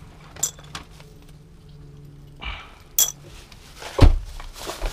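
Small pieces of scrap metal clinking as they are picked up and set down on a car's cargo floor, with a heavier thump about four seconds in and a plastic bag crinkling near the end.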